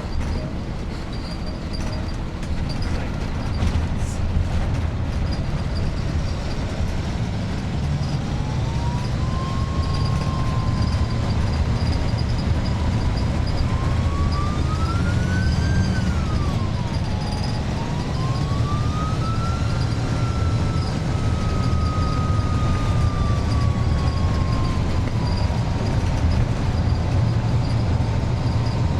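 Iveco 170S28 bus diesel engine running on the road over a low rumble, with its shrill turbocharger whistle slowly rising and falling in pitch as the load changes.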